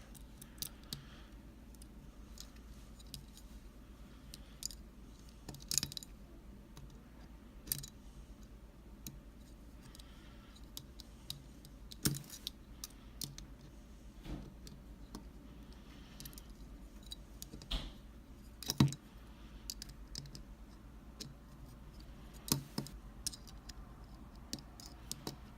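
Scattered light metallic clicks and taps, with a few sharper ones, from a Mul-T-Lock Junior padlock being handled while its screws are worked at with a small screwdriver.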